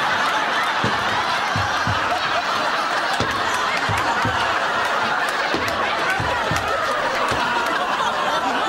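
Sitcom studio audience laughing together, one long laugh that holds at an even level throughout.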